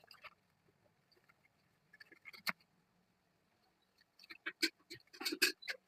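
Slate pencils and their packaging being handled during unboxing: scattered sharp clicks and light taps, one about two and a half seconds in and a quick cluster of them near the end.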